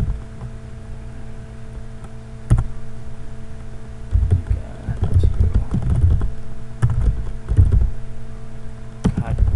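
Computer keyboard being typed on: a single keystroke about two and a half seconds in, then runs of keystrokes from about four seconds in. A steady electrical hum runs underneath.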